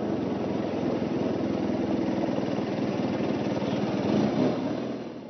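A motor vehicle engine in the race convoy running steadily at low revs close to the riders, with an even pulsing throb that dips just before the end.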